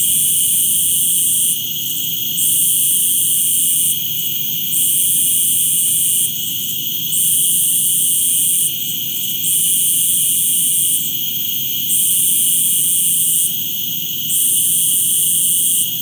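Cicadas singing: a loud, shrill, continuous buzz that dips briefly about every two and a half seconds, then swells back.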